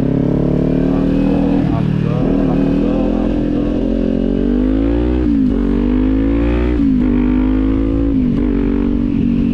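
Kawasaki 400 parallel-twin motorcycle engine under way: the engine note climbs steadily under acceleration, drops sharply with upshifts about five, seven and eight seconds in, then holds level, over a low rush of wind.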